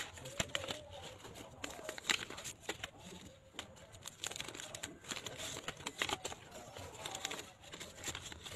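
Paper envelopes being handled and opened and folded banknotes pulled out, giving irregular crisp crinkling and rustling with short tearing sounds.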